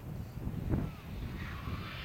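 A rally car's engine running on the stage, mixed with low wind rumble on the microphone; a rushing hiss swells near the end.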